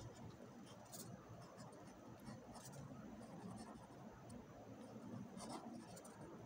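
Faint scratching of a ballpoint pen writing on lined notebook paper, with a few soft clicks as the pen tip meets the page.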